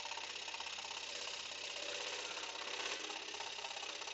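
Axminster AP535SS scroll saw running, its blade moving up and down and cutting through a wooden board with a steady, fast rhythmic chatter.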